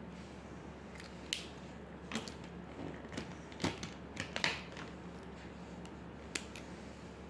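Short scratchy pen strokes on paper, a few irregular strokes clustered in the middle, over a steady low hum.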